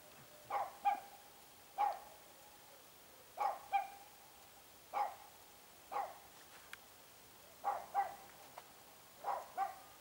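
A dog barking repeatedly in short, irregular barks, often two in quick succession.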